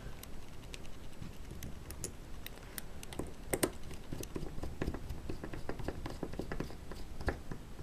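Irregular light clicks and taps of small screws and nuts being handled and fitted together by hand, with one sharper click a little past the middle.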